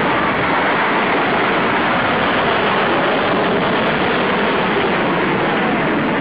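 F/A-18 Hornet fighter jet's engines, a loud, steady rushing jet noise as the jet climbs away after a low pass.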